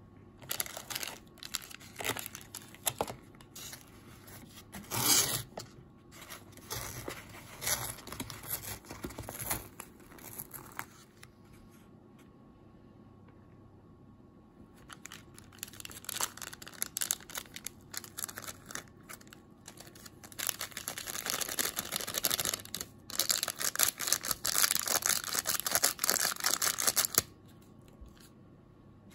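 Crinkling and tearing of the plastic seasoning packets and lid of an instant ramen cup as they are handled and pulled open, in two long stretches of dense crackle with a pause between. The second stretch is a powdered-soup sachet torn open and shaken out over the noodles.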